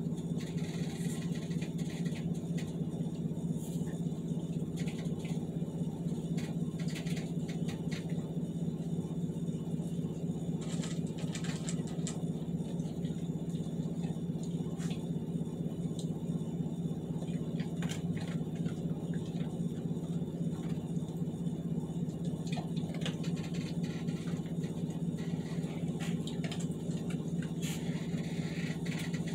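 Steady low mechanical hum throughout, with scattered small clicks and knocks as a large dog eats from its bowl and handles a tennis ball.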